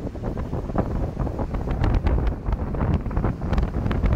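Wind buffeting the microphone with irregular thumps and crackles, over the low rumble of a car driving in traffic.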